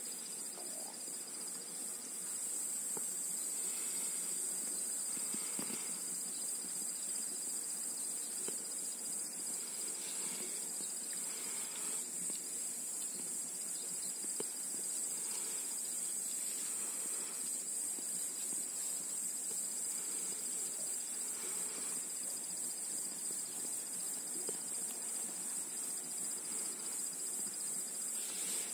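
Steady, high-pitched chirring of an insect chorus.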